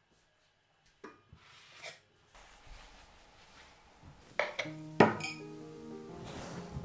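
A few light clinks and knocks of crockery on a tabletop, with sharper clinks about four and a half to five seconds in. Soft music with held notes comes in about five seconds in.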